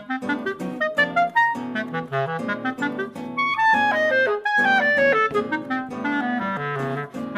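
Clarinet and guitar duo playing: plucked guitar notes and chords under a clarinet melody. About halfway through, the clarinet plays a quick run of notes falling in steps.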